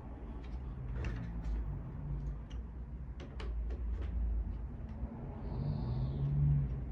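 A series of short, sharp clicks and knocks at irregular intervals over a steady low hum, with a brief hiss near the end.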